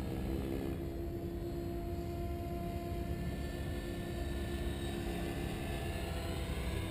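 Synergy E7se electric RC helicopter in flight at a distance: a steady whine from its motor and rotor blades, over a low rumble. Its pitch shifts near the end.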